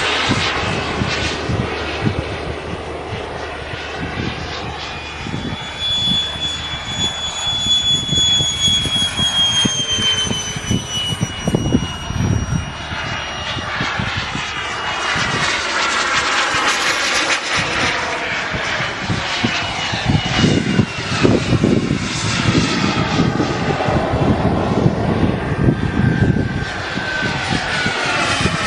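Turbine-powered RC model jet flying by with a steady rushing turbine sound; a high whine drops in pitch as the jet passes about a third of the way in, and the sound swells again near the end. Wind buffets the microphone.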